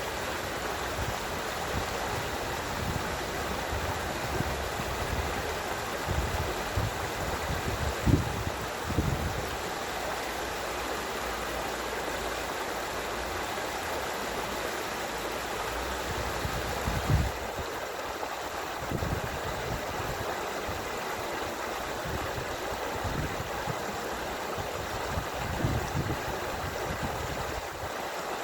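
A stream of running water rushing and gurgling steadily, with a few short low rumbles, the loudest about 8 and 17 seconds in.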